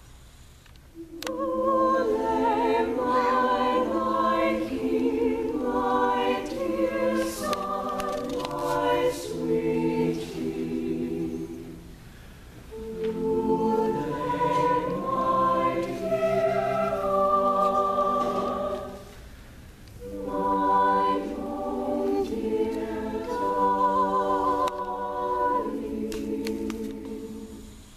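Madrigal choir singing a cappella in sustained multi-voice phrases, pausing briefly between phrases twice.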